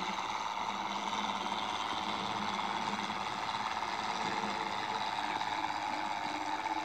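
Motorized toy John Deere 4020 tractor running steadily while it pulls a toy disc harrow, an even mechanical whir with a constant high tone.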